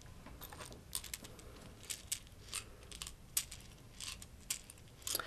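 Faint, scattered clicks and light clinks of the Montessori racks-and-tubes material being handled: test tubes and their beads picked from the rack and counted out into the cups.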